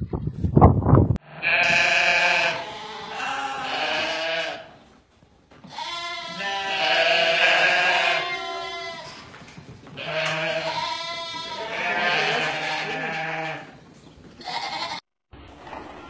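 A flock of sheep bleating: long, wavering, overlapping bleats in three bouts, after a few sharp knocks in the first second.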